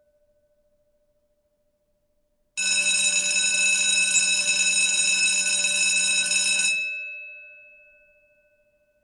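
School bell ringing: it starts suddenly about two and a half seconds in, rings continuously for about four seconds, then stops and the gong's tone fades out.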